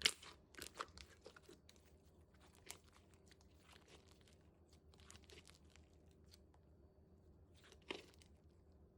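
Crinkling and crackling from something being handled, dense for the first second and a half, then a few scattered clicks, with one more short burst of crackles near the end.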